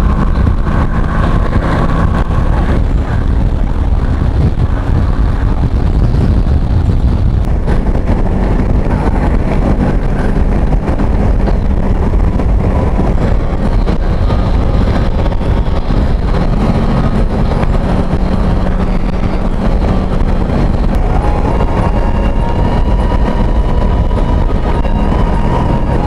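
Wind rushing over the microphone on a moving motorcycle, with the engine running steadily underneath.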